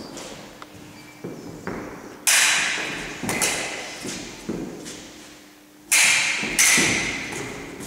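Foil blades striking and fencers' feet stamping and landing on a wooden floor: several sharp hits, the loudest about two seconds in and again about six seconds in, each echoing around a large hall.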